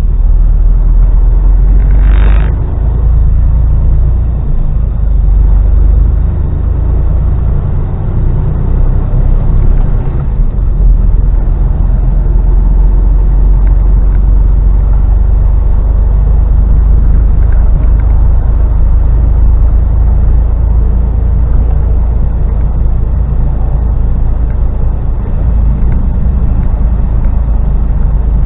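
Mercedes-Benz Actros lorry's diesel engine and road rumble heard from inside the cab, running steadily while driving in traffic, with a short hiss about two seconds in.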